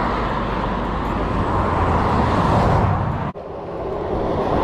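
Road traffic passing close by: a loud rush of tyre and engine noise that builds over the first few seconds, breaks off abruptly a little past three seconds in, then rises again.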